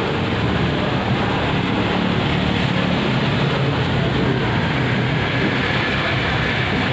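Street traffic on a rain-wet road: cars driving past close by, a steady rush of tyre noise on the wet surface over the low hum of engines.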